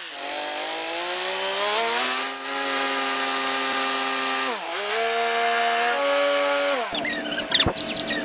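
A small motor running with a steady buzz, slowly rising in pitch, then dipping and recovering twice as if briefly loaded, followed near the end by clatter and a knock.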